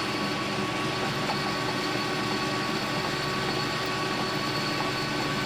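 Metal lathe running steadily, its motor and drive giving an even hum with a faint steady high whine.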